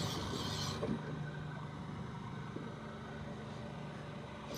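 Fishing boat's motor running steadily with a low, even hum; a hiss stops about a second in.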